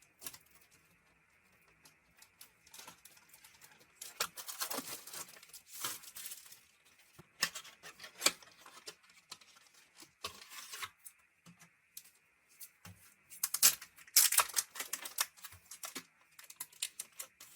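A pack of plastic card sleeves being torn open and handled: crinkling and tearing in irregular bursts, loudest about four to six seconds in and again near the end.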